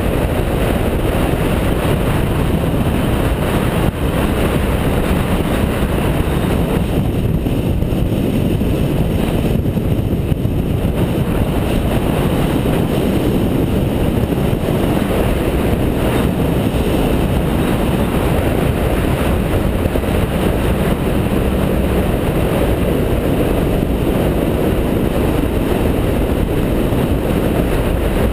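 Wind rushing over a GoPro action camera's microphone, mixed with the BMW F650GS motorcycle's engine, while riding at steady road speed. The upper hiss eases briefly about a third of the way in.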